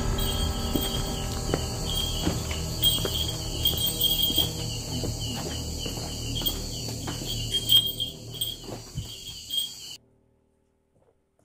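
Night insects chirping in a steady high pulsing chorus, with scattered footsteps and scrapes on rocky ground over a low rumble. All of it cuts out suddenly about ten seconds in.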